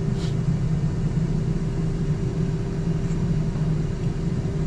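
Automatic car wash machinery running during the soap stage, heard from inside the car's cabin: a steady mechanical hum with a constant tone over it.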